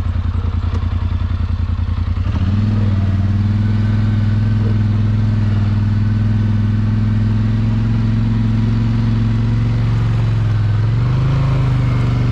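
ATV engine in four-wheel drive, first throbbing at low speed, then revving up about two seconds in and held at a steady higher pitch as it pushes through a deep mud rut, rising a little more near the end.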